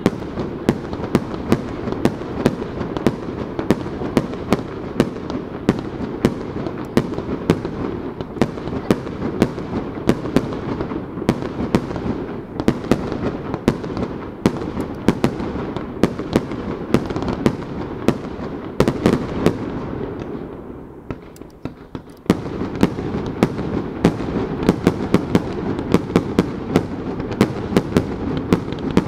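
Aerial fireworks going off in a rapid barrage: sharp bursts and launch reports about three a second over a continuous dense rumble. The barrage thins out about twenty seconds in and resumes abruptly a couple of seconds later.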